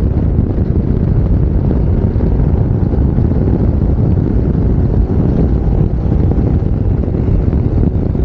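Steady low wind rumble buffeting a helmet-mounted lavalier microphone with no furry wind muffler, on a moving scooter, with the Yamaha NMAX 155's engine running underneath.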